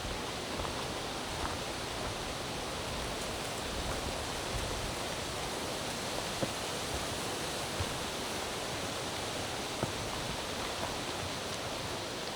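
Steady, even rushing noise, such as running water, with a few faint ticks of footsteps on the trail.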